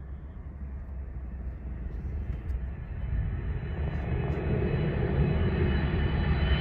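Twin-engine widebody jet airliner on final approach with its landing gear down, its engine noise growing steadily louder as it closes in. A whining tone rises out of the low rumble in the second half.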